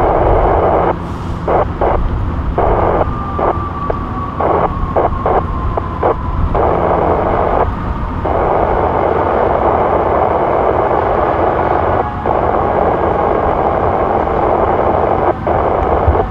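Wind buffeting the microphone over a low city rumble: a noisy rush that cuts in and out abruptly with the gusts. A faint whine falls slowly in pitch for a few seconds, starting about three seconds in.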